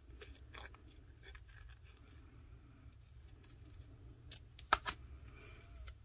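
Small craft scissors snipping around a paper sticker, faint cuts and paper rustle, with two sharper snips close together near the end.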